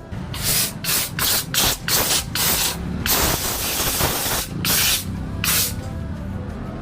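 Short bursts of hissing spray from a pressurised nozzle. About seven quick sprays come first, then one held for about a second and a half, then two more short ones.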